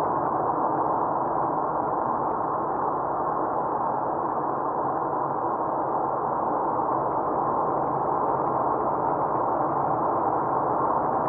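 Steady, muffled road and engine noise of a car cruising at highway speed, heard from inside the cabin.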